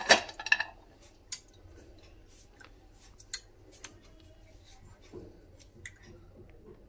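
A brief clatter near the start, then faint scattered clicks and taps as whole almonds are picked up and laid by hand on kheer in a dish.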